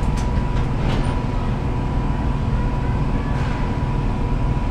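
Steady low rumble of ventilation or air-conditioning machinery, with a faint steady high-pitched tone running through it.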